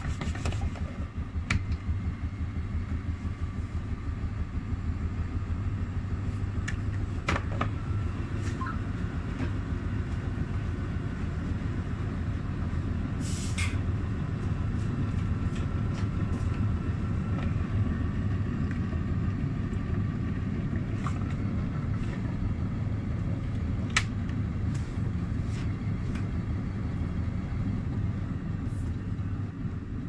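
Overloaded Miele Softronic W3523 front-loading washing machine running with a steady low rumble of motor and drum, with a few light clicks and a brief hiss about thirteen seconds in.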